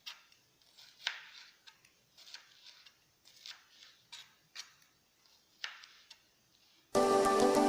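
Irregular light taps and clinks of kitchen utensils, about a dozen short ones spread over six seconds, the loudest about a second in. Background music comes back in near the end.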